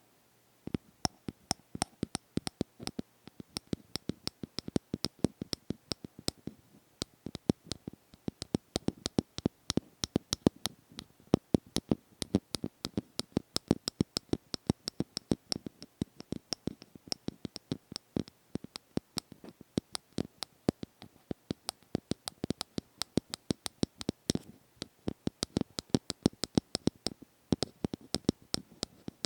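ASMR tapping: quick, irregular taps, several a second, starting about half a second in and going on without a pause.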